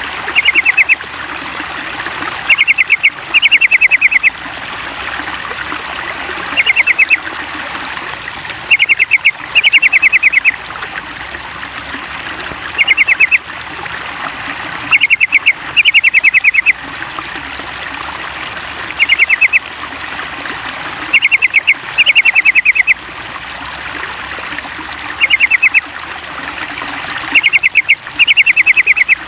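Yellow-vented bulbul (trucukan) song: short, loud bursts of quick notes, one or two at a time, repeating every couple of seconds in a steady looped pattern. Under it runs steady trickling water.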